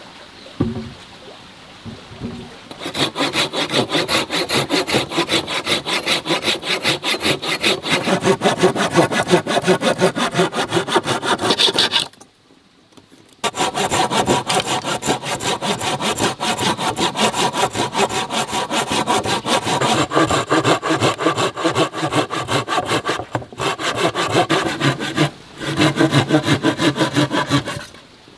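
Hand saw cutting through old wooden planks in quick, even back-and-forth strokes, with a short break about halfway through and a couple of brief pauses near the end.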